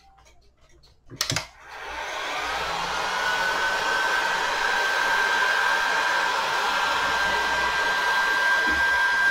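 Bauer heat gun switched on with a click about a second in. Its fan spins up with a rising whine into a steady blowing noise as it heats the glue holding a cuckoo clock's bellows.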